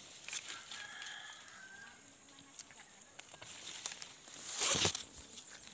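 Guava tree leaves and branches rustling sharply as a fruit is handled and pulled, loudest about three-quarters of the way in. A rooster crows faintly in the first couple of seconds.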